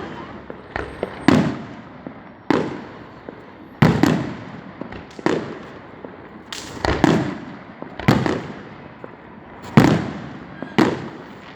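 Aerial fireworks shells bursting, about a dozen sharp booms roughly a second apart, each trailing off in a rumbling echo.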